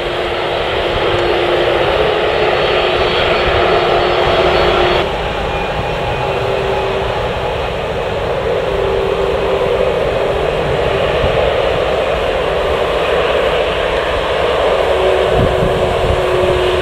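Jet airliner engines running loud and steady: a continuous roar with a whining tone in it. The sound changes abruptly about five seconds in.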